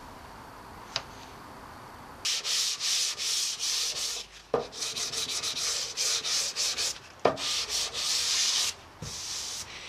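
Sanding block with 180-grit paper rubbed by hand over hardened body filler on a car's wheel arch, in a run of short back-and-forth scratching strokes that start about two seconds in. Two sharp knocks break the strokes partway through.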